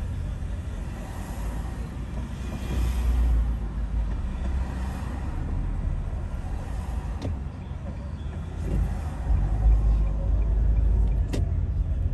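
Low, steady rumble of a slow-moving car's road and engine noise, swelling louder a couple of times, with a sharp click near the end.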